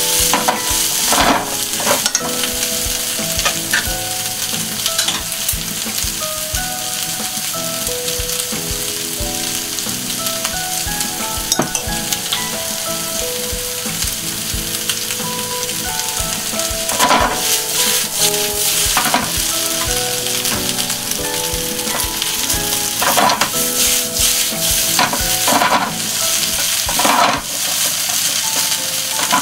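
Sliced potatoes, bacon, sausage and onion sizzling hard in a frying pan over a high gas flame. Louder bursts of sizzle and scraping come as the pan is tossed and the food is stirred with chopsticks, a few times near the start and repeatedly in the second half.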